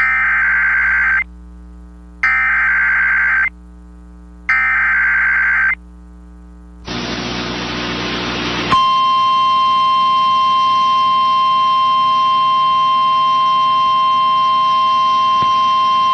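Emergency Alert System SAME header: three harsh, warbling digital data bursts, each a little over a second long, about a second apart, marking the start of a new weather warning. About two seconds of static hiss follow, then a single steady high tone, the NOAA Weather Radio 1050 Hz warning alarm, that sounds before the alert message.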